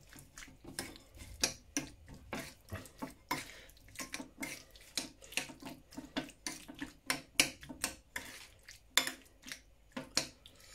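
Smoked pork lardons being stirred into a wet marinade of soy sauce, honey and ketchup: irregular wet squelches and clicks, several a second.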